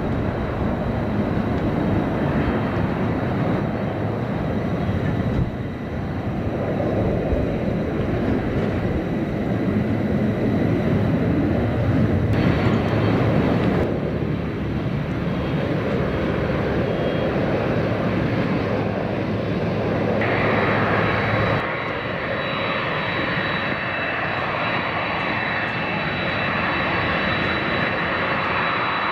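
Boeing 747-400D jumbo jet taxiing, its four jet engines running with a steady noise and a thin high whine. The sound changes abruptly a few times where shots are cut together.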